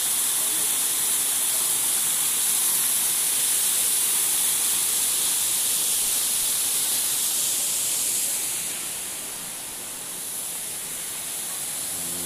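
Waterfall running in many thin streams down a rock face into a pool: a steady rush of falling water, dipping a little in level about nine seconds in.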